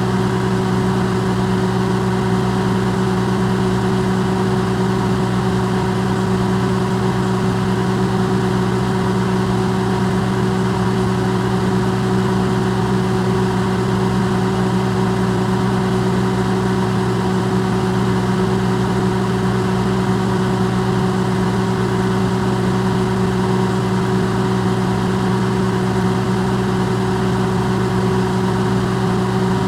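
Electrolux microwave oven running, recorded amplified: a steady low hum with an even whirring noise over it, unchanging throughout.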